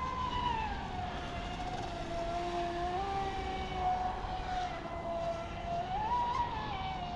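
Pro Boat Sonic Wake V2 RC speedboat's brushless motor whining as it runs across the water, over a steady low rush. The whine's pitch drops within the first second, steps up about three seconds in, and rises briefly about six seconds in before falling back.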